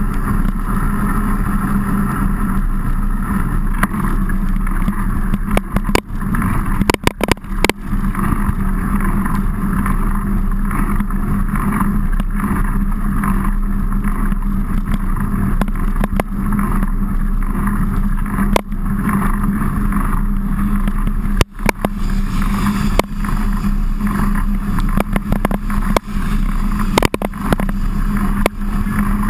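Steady rumble and wind noise on a bike-mounted action camera's microphone as a mountain bike is ridden, with a few brief drop-outs about six to eight seconds in and again near twenty-one seconds.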